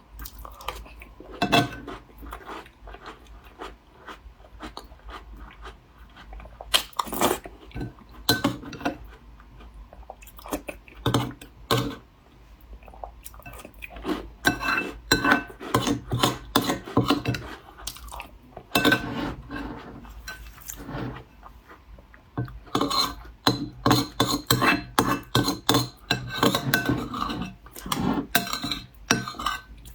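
Chewing and crunching crumbly taosu (Chinese peanut-oil crisp cookies), with many irregular clicks and crackles, busiest in the second half.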